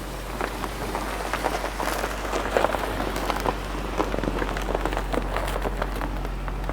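Car engine running low and steady while the tyres crunch and crackle through wet snow and slush, a dense patter of small cracks that thickens after about a second.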